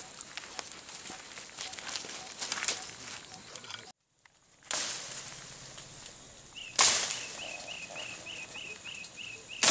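Leaves and branches rustling and swishing with footsteps as people push through dense forest undergrowth, cut off briefly about four seconds in. Later comes a sharp crack, with a faint high chirp repeating about three times a second in the background.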